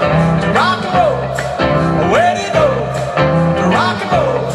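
Live rock band playing, with a lead line that swoops up in pitch and falls back again about every second and a half over a steady beat.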